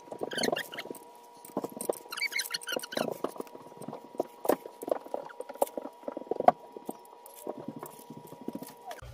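Aluminium folding walker knocking and clacking as a person pulls up from a wheelchair onto it and shuffles with it, with one sharp knock about six and a half seconds in. Short high squeaks come near the start and again around two to three seconds in.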